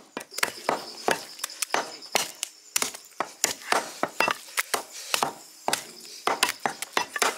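Meat cleavers chopping mutton on wooden log chopping blocks: a steady run of sharp chops, about three to four a second.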